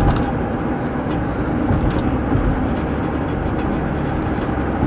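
Steady road and engine noise inside the cabin of a moving van.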